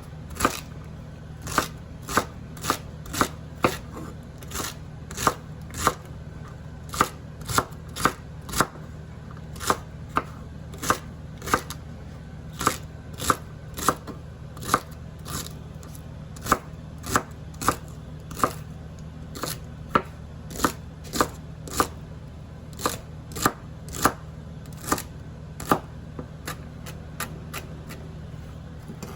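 Knife chopping onion, steady strokes about two a second, over a faint steady low hum.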